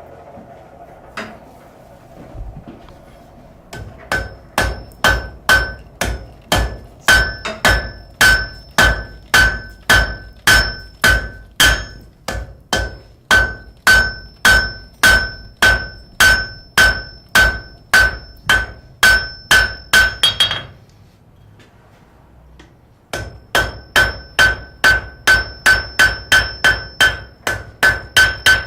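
Blacksmith's hammer striking steel on an anvil in a steady rhythm of about two blows a second, each blow ringing with the same bright metallic tones. The hammering stops for a couple of seconds about 20 seconds in, then starts again.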